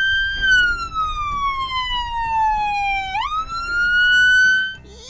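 Police car siren sounding in a wail from the car's front-mounted siren speaker: a high tone that slowly falls, sweeps quickly back up about three seconds in, then cuts off near the end.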